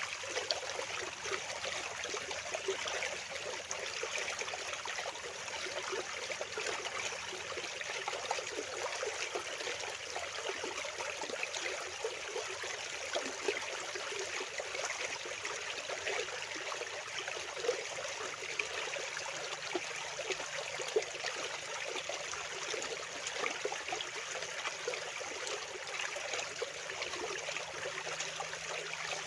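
Fast-flowing water running steadily, an even rush with many small splashes through it.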